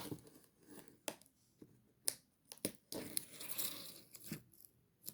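A blade cutting open a cardboard packing box: sharp clicks and snaps of the box being handled, and a longer scraping tear of the cardboard about three seconds in.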